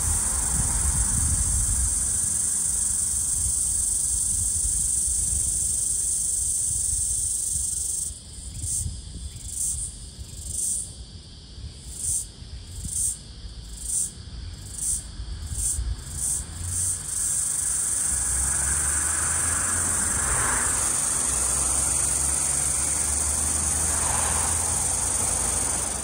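Floury baker cicada (Aleeta curvicosta) calling: a high-pitched continuous buzz that, about eight seconds in, breaks into a run of separate pulses about one a second, quickening toward the end, then settles back into a steady buzz for the last eight seconds or so.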